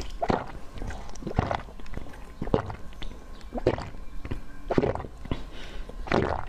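Close-up wet slurping and gulping of soft jelly sucked from a bottle-shaped jelly, about six gulps evenly spaced a second apart.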